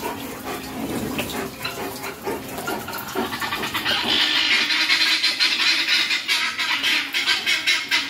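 A flock of helmeted guineafowl calling together in a harsh, rapid chatter that grows much louder about halfway through. It is an alarm commotion, which the owner blames on his coming in wearing a hat.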